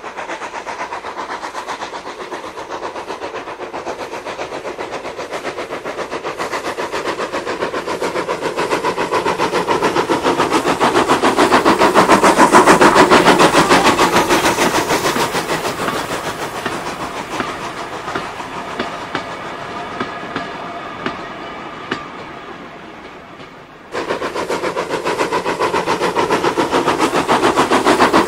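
Dapol O gauge Terrier tank locomotive and its freight wagons running on Peco O gauge track: a fast metallic clatter of wheels over the rails with a faint steady whine under it. It grows louder as the train passes close by about 13 seconds in, fades away with a few single clicks, then cuts back suddenly to loud running near the end.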